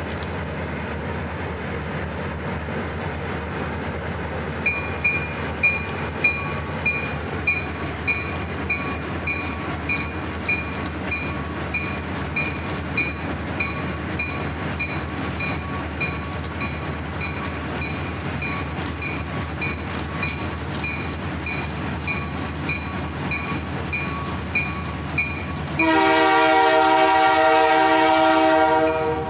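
Diesel freight locomotives rumbling steadily as the train approaches. From about five seconds in, a bell rings about twice a second. Near the end, the locomotive horn sounds a loud multi-note chord, breaks off briefly, and sounds again.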